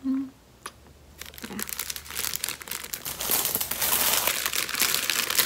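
Thin clear plastic packaging crinkling and rustling as a set of makeup brushes is handled. It starts about a second in and is loudest in the second half.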